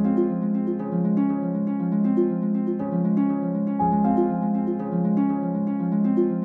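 Instrumental background music: a gentle, steadily repeating figure of plucked notes.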